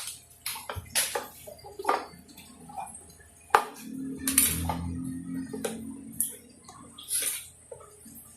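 A spoon clinking and scraping against a container as slime is stirred: a string of sharp irregular taps and clicks, the loudest about three and a half seconds in.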